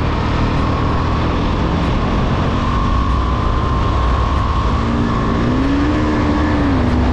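KTM Duke motorcycle's single-cylinder engine pulling hard under acceleration at highway speed, mixed with heavy wind rush on the microphone. The engine note rises in pitch and drops back near the end.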